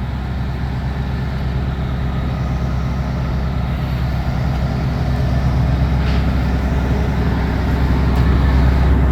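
Kobelco SK300 excavator's diesel engine running steadily, a low rumble that grows slowly louder.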